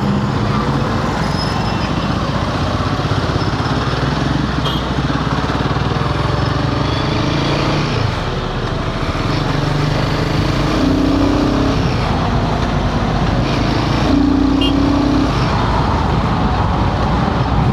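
Royal Enfield Himalayan 450's single-cylinder engine running steadily while the bike is ridden, mixed with wind rush and road traffic, the engine note shifting pitch now and then.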